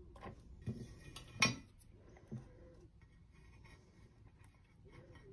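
Wooden lolly sticks being pushed into a plastic ice-lolly mould: a few light clicks and knocks of wood on plastic, the loudest about a second and a half in.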